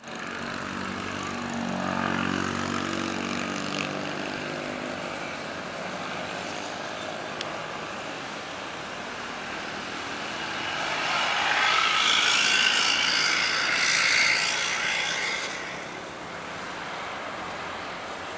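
Qatar Airways Boeing 787 jet engines during a landing. A pitched engine hum and rushing noise come first. Then, about eleven seconds in, a louder roar swells for some four seconds as the airliner rolls out on the runway, and eases off after.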